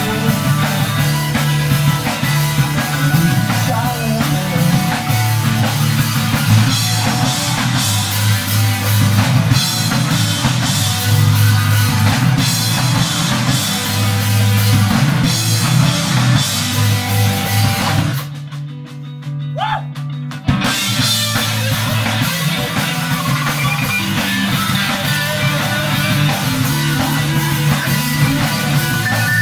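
Rock band playing live, with a drum kit and electric guitars. About two-thirds of the way through, the band breaks off for about two seconds, then crashes back in.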